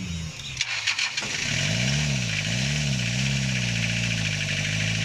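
Toyota 3L 2.8-litre four-cylinder diesel, just retimed with a new belt and rebuilt injection pump, firing with a few sharp knocks and catching about a second and a half in. It is revved up and down twice, then settles into a steady idle.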